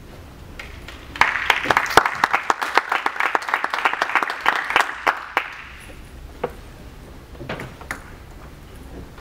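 Audience applauding for about four seconds, then a few scattered light knocks.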